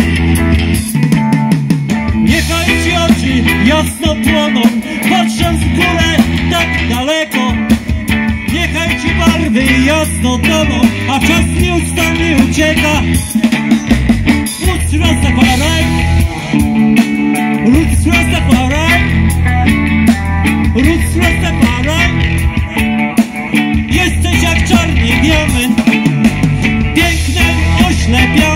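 Live rock band playing: electric guitars, bass guitar and drum kit, with a singing voice in places.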